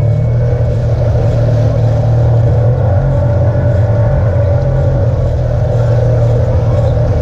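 Side-by-side UTV engine running at a steady pace along a dirt trail, heard loud and close from on board the vehicle.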